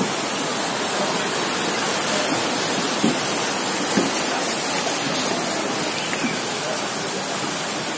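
Muddy floodwater rushing down a flooded street: a steady, unbroken noise of fast-flowing water.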